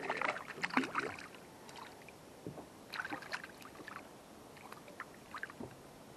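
Water splashing in short irregular bursts as a small hooked bream (sunfish) thrashes at the surface beside the kayak while it is reeled in and lifted out, the biggest splashes in the first second and more around three and five seconds in.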